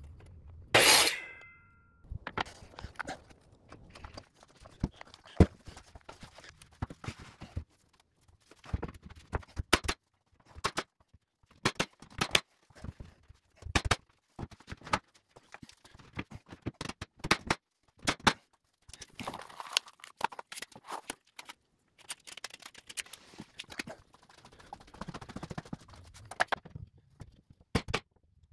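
A miter saw gives one brief loud burst about a second in. Then many sharp, irregular clicks and knocks follow: a cordless brad nailer firing nails into baseboard trim, and the boards being handled.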